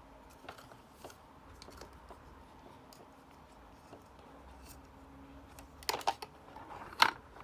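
Plastic action figure being handled and posed: scattered small clicks and taps, then a cluster of louder clicks about six seconds in and another sharp click about a second later.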